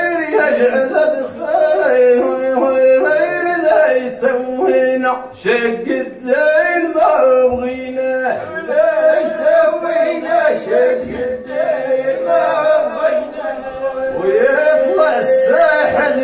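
Men's voices singing Moroccan rasma poetry without instruments: a lead voice winds through a long melismatic line over a steadily held note, pausing briefly for breath twice.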